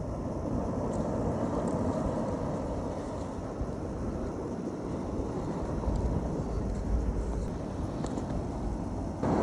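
Wind buffeting the microphone over a steady rush of surf, with heavier low gusty rumbles about halfway through.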